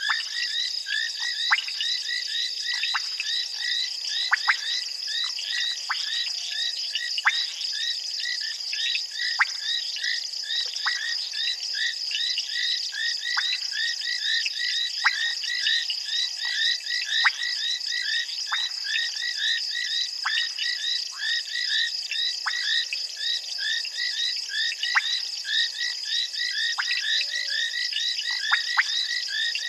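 A dense night chorus of many frogs calling around a waterhole. Short, fast-repeated high chirps overlap without a break, with sharp falling clicks scattered through and a steady high buzz underneath.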